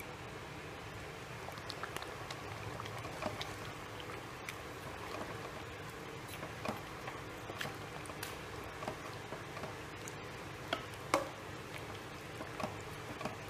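Metal ladle stirring a thick chicken curry in an aluminium pot: wet squelching of the gravy with scattered light clicks and knocks of the ladle against the pot, the loudest about eleven seconds in, over a steady low hum.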